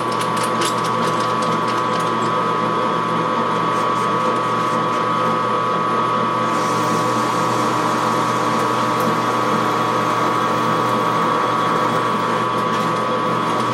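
Metal lathe running steadily with a constant gear whine, with a few sharp clicks in the first second. A hiss above the whine eases off about halfway through.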